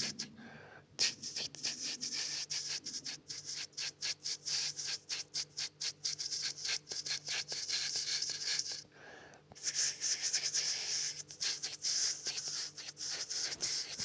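Rapid, irregular scratching or rubbing, many short hissy strokes a second, pausing briefly just after the start and again about nine seconds in.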